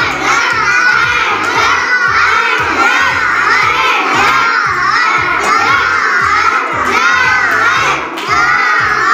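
A group of young children shouting and cheering together, many high voices overlapping without a break, over a steady low beat repeating about twice a second.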